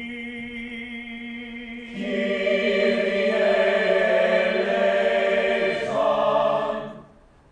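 A group of voices singing unaccompanied in long held notes: a single sustained note at first, then several more voices join about two seconds in, the chord shifts shortly before the end and the singing stops.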